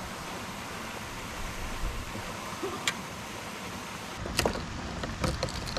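Steady hiss of water and wind around a kayak drifting on the water, with a single sharp click about three seconds in. After about four seconds, a quick series of sharp knocks and clicks against the kayak.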